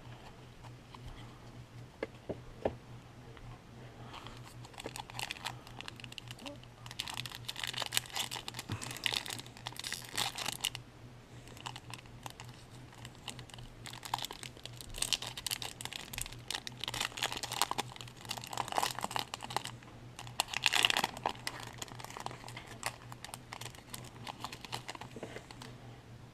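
Crinkling and tearing of a foil trading-card pack wrapper being opened, with the cards handled, in two long stretches of rustling over a steady low hum.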